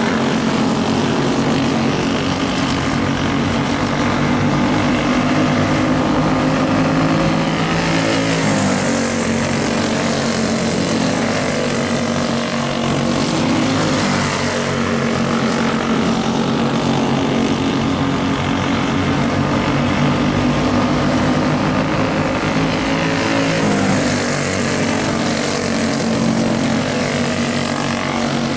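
Racing karts' small engines running hard on a dirt oval, their pitch rising and falling over and over as they go round the turns and down the straights.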